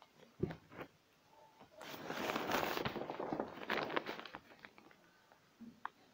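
Pencil scratching on paper in quick strokes: a dry, scratchy rustle lasting about two seconds, after a couple of light clicks.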